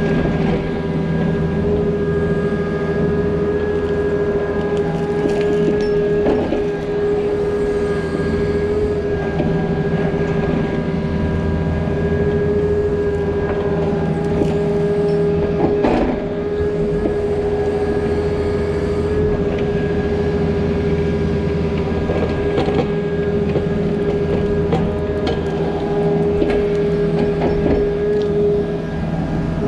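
Compact diesel earthmoving machine running steadily at work: a low engine drone with a steady high whine over it, and a few short knocks, the loudest about 16 seconds in.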